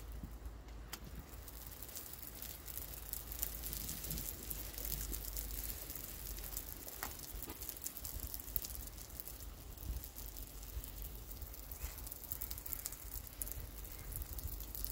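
Light crackling and sizzling of cooking over a charcoal grill, an egg frying in butter in a pan over the glowing coals, with many small scattered ticks and a low steady rumble underneath.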